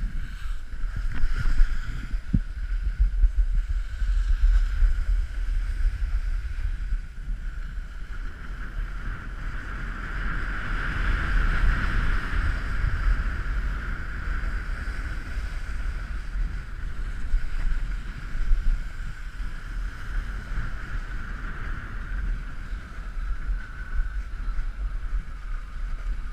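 Wind buffeting an action camera's microphone with a steady low rumble, over the hiss and scrape of a snowboard sliding over packed snow. The hiss grows louder about halfway through, then eases.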